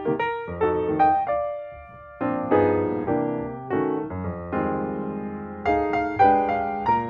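Piano music: notes and chords struck and left to die away, a new one every half second or so, with a short lull about two seconds in.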